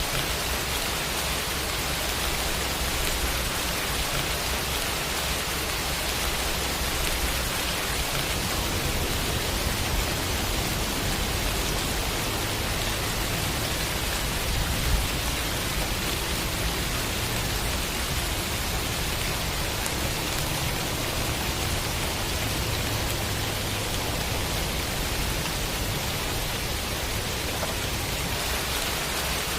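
Rain sound effect: steady, dense rainfall hiss with no let-up, and a single brief tick about halfway through.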